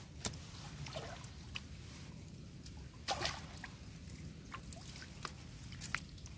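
Scattered light clicks and knocks from a plastic mesh eel trap being handled and turned over with a goby inside it, the loudest knock about three seconds in.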